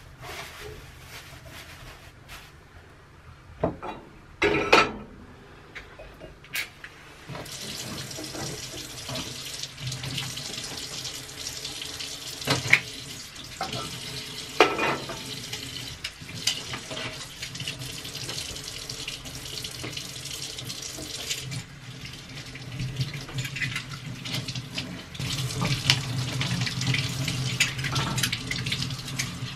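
Kitchen tap running steadily into a sink from about a quarter of the way in, dipping briefly about two-thirds through. A few sharp knocks and clatters come over it.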